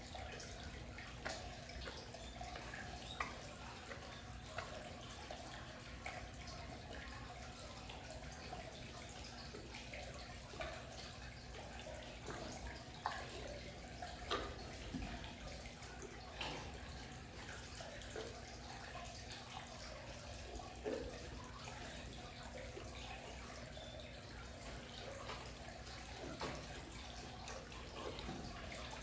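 Amur tiger chewing meat: irregular clicks and smacks of its jaws working on the meat, spaced about a second apart, over a steady low hum.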